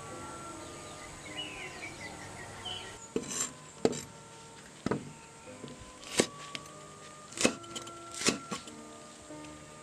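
Outdoor ambience with insects and a few bird chirps. About three seconds in, a cleaver starts chopping green chillies on a wooden cutting board, with sharp knocks about once a second.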